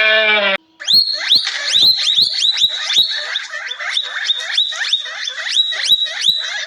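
An animal calling in a rapid run of high, sharply rising chirps, about three a second, after a short pitched call that cuts off about half a second in.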